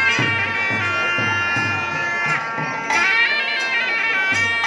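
Temple procession music: a loud double-reed pipe plays a gliding, ornamented melody over a steady drone, with drum strokes beneath.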